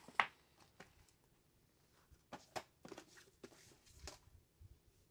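Faint, scattered light clicks and taps of a plastic storage tray being handled on a tile floor.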